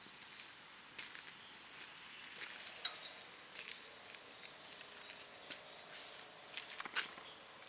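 Faint hum of the crossing's electric barrier drives as the two gate arms lower, starting about five seconds in. Scattered faint high chirps and clicks sound throughout.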